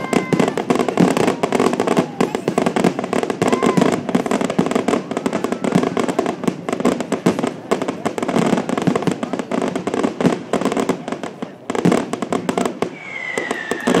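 Fireworks finale: a rapid, continuous barrage of bangs and crackling, many reports a second, thinning a little near the end.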